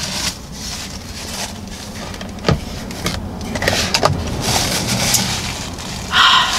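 Rustling and handling noise, with a single sharp click about two and a half seconds in; near the end, a paper napkin is rubbed against the lips to wipe off smeared lipstick.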